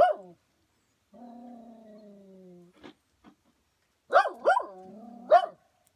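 A dog vocalising in drawn-out howling whines. A long, slowly falling call comes about a second in, then a louder run of quick rising-and-falling calls around four seconds in.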